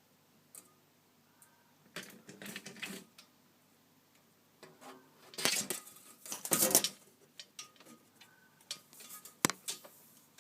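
Unidentified clattering and rattling clicks in irregular bursts: a cluster about two seconds in, the loudest run from about five to seven seconds, and a few sharp clicks around nine seconds.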